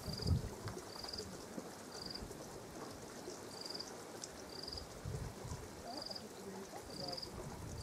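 Bush ambience with a short, high trilled chirp repeating about once a second over a soft hiss. Brief low rumbles come near the start and again about five seconds in.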